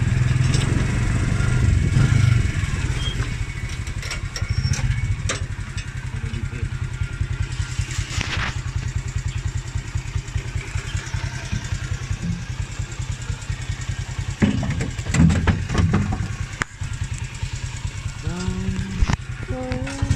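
Small motorcycle engine of a cargo tricycle running steadily under way, with a few short knocks. It gets louder and more uneven about three-quarters of the way through.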